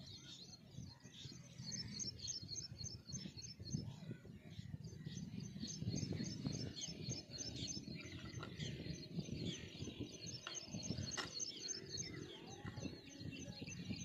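Small birds chirping in a steady run of short, high notes, several a second, over low rumbling noise and a few light clicks.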